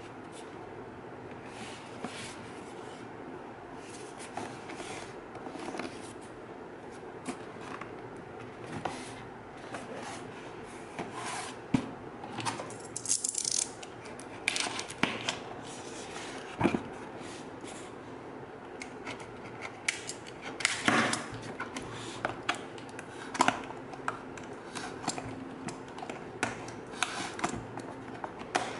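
Cardboard shipping box being handled and its packing tape slit with a utility knife: scattered taps, scrapes and rustles, with a few short rasping cuts, the loudest about 13 and 21 seconds in.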